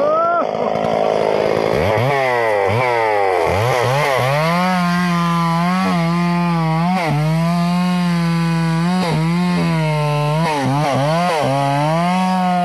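Two-stroke chainsaw crosscutting a felled teak log, running loud at high revs, its engine pitch dipping and recovering again and again as it cuts under load.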